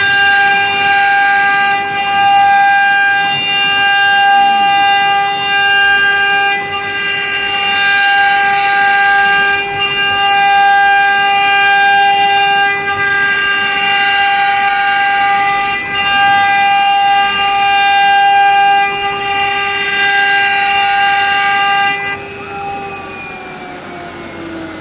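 Water-cooled spindles of a three-head CNC engraving machine running at speed with a steady whine. About 22 seconds in the sound drops, and near the end the pitch falls as the spindles wind down.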